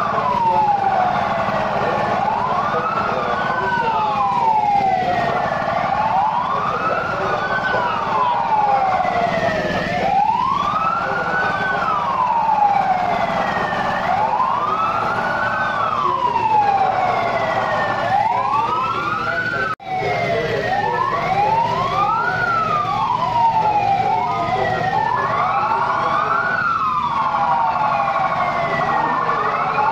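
Emergency-vehicle siren wailing, each quick rise and longer fall repeating about every four seconds, over a steady low hum. After a brief dropout about twenty seconds in, a second siren wails slightly out of step with the first.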